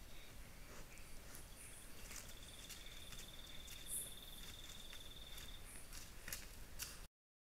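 Faint forest ambience: an insect, cricket-like, trilling steadily on one high pitch for about three seconds, with scattered faint clicks and rustles. The sound cuts off abruptly near the end.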